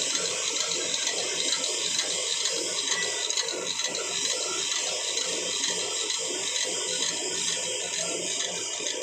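Wood pellet mill running, with a steady machine hum under dense, continuous mechanical rattling.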